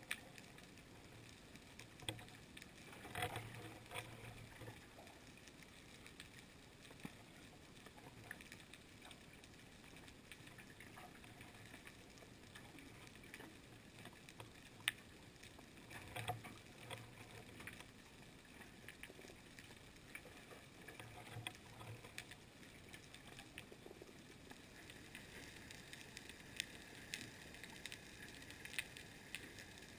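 Faint underwater ambience heard through a camera housing: a low steady hiss with scattered sharp clicks, and a few brief low rumbling bursts, one a few seconds in and two more later.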